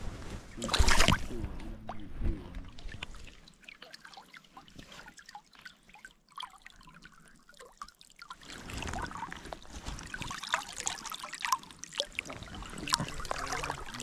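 Stream water splashing and trickling around a landing net holding a brook trout: a loud splash about a second in, a quieter few seconds, then steadier trickling and small splashes as the net goes back into the shallow water.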